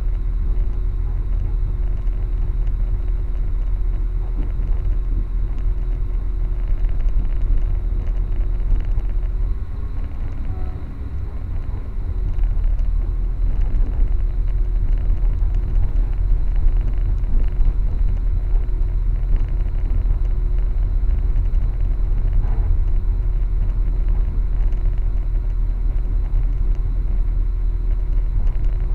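Steady low rumble of a passenger train running, heard from inside the carriage, with a faint steady hum over it. It eases briefly about ten seconds in.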